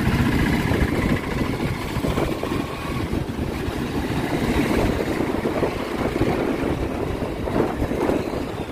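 Road noise from a moving vehicle in light town traffic: a steady engine drone with a low rumble underneath.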